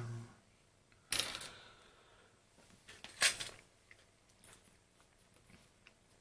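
Small handling noises: a short low thump at the start, then two brief rustling scrapes about a second and three seconds in, the second the loudest, with a few faint clicks, as meter probes and the phone's keypad circuit are handled for a resistance test.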